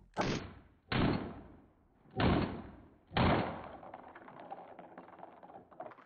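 Four pistol shots from a Glock, two to the body and two to the head, spaced roughly a second apart; each is a sharp crack with a short fading tail, and the last one trails off more slowly.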